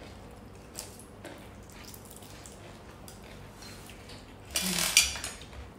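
Wet mouth sounds of people eating: soft smacks and small clicks, then a loud slurp lasting about half a second, starting about four and a half seconds in, with a short hum and a sharp click near its end.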